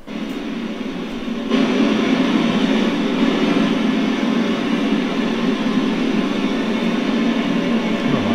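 Radio static: a steady hiss from the amateur-radio transceiver's speaker with no station on the channel, stepping up louder about a second and a half in. It is the open channel between calls while the ISS has not yet answered.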